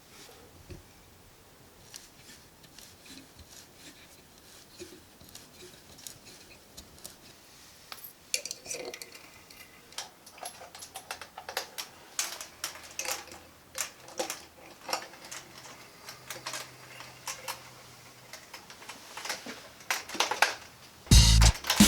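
Small metal chains and S-hooks clinking and rattling while an LED shop light is hung. The clinks start sparse and come thicker and louder from about a third of the way in, ending in a few loud knocks and thumps.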